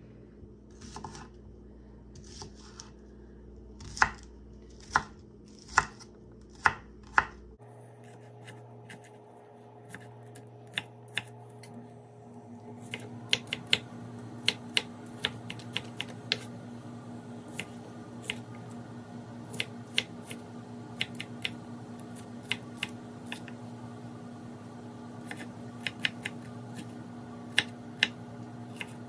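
Kitchen knife chopping small onions on a wooden cutting board: irregular sharp knocks of the blade on the board. A few loud, spaced strikes come in the first quarter, then quicker, lighter chopping from a little before halfway. A low steady hum comes in about a quarter of the way through.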